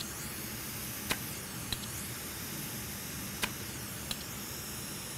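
Steady faint hiss with a few light clicks spread through it, from a hand solder sucker and soldering tip being worked while clearing solder from the connector's pin holes on a circuit board.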